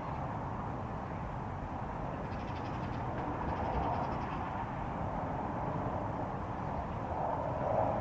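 A steady low rumbling drone from the sky outdoors, the kind of unexplained hum reported as a 'strange sound from the sky', with a couple of brief harsher calls about four seconds in and near the end.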